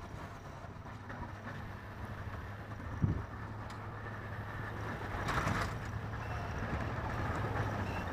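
2009 Chevrolet Silverado 2500HD plowing snow with a Western MVP3 V-plow: the truck's engine runs steadily and grows louder as it comes closer. A thump about three seconds in.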